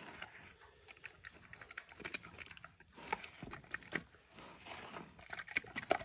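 Mini pig chewing and crunching watermelon rind from a rubber feed pan: a quick, irregular run of wet crunches and smacks, growing louder near the end.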